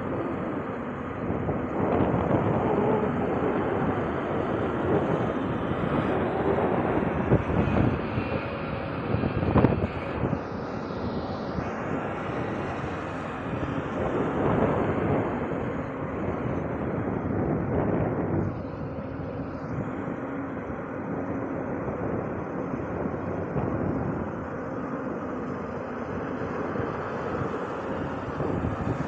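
Excavator's diesel engine running steadily, swelling in loudness several times as the machine works under load digging and dumping sand. A sharp knock sounds once about a third of the way through.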